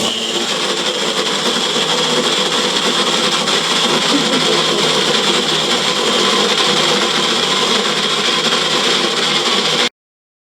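Electric blender running steadily, whipping egg whites and sugar into meringue. It starts abruptly and cuts out abruptly about half a second before the end.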